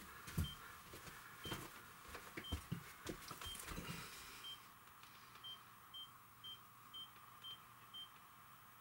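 Camera self-timer beeping faintly, one short high beep a second, quickening to two a second about five and a half seconds in as the countdown nears the shutter release. In the first four seconds, a few soft thumps and rustles of someone stepping back into place.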